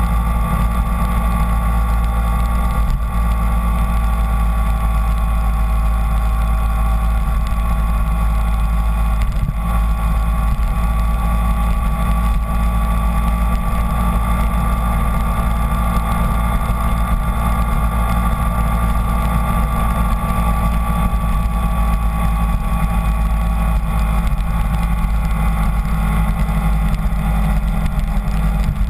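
Kawasaki Ninja 250 motorcycle engine running at a steady cruise, its note barely changing, under heavy wind rush on the bike-mounted microphone.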